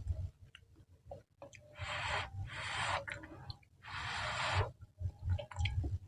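Close-miked mouth sounds of eating spicy wet noodles: two long slurps, the first about a second and a half long and the second shorter, with chewing and small wet mouth clicks around them.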